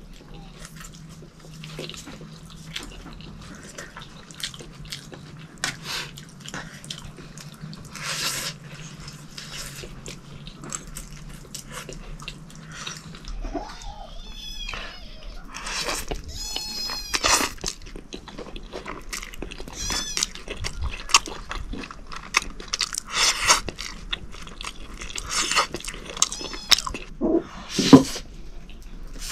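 People slurping and chewing noodles, with forks clinking and scraping on plates. Short wet smacks and clicks throughout, and squeaky, whistling slurps in the second half, the loudest slurp near the end.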